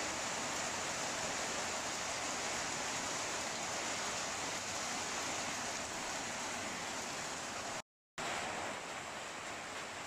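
Rain falling steadily on an old tin roof, an even hiss, broken off for a split second about eight seconds in.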